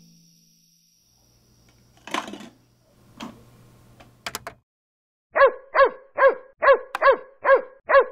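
A dog barking, a quick run of high, yappy barks at an even pace of about two a second, starting about halfway through. Before it, a few faint brief scuffs and clicks.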